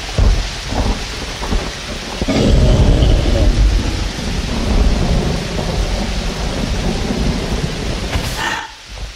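Rain falling with rolling thunder; a long, loud rumble of thunder builds about two seconds in and carries on under the rain.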